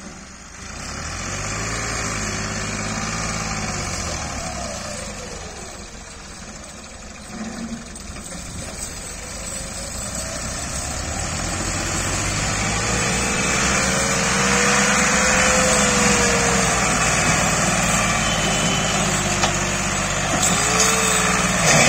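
Massey Ferguson 260 tractor's turbocharged three-cylinder diesel engine working under a heavy load, its pitch rising and falling as it revs up and eases off. It gets louder through the second half.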